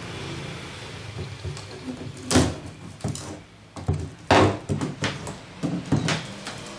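Wooden crate lid being pried open with a hand tool: a run of sharp knocks and cracks of wood, the two loudest about two and a half and four and a half seconds in.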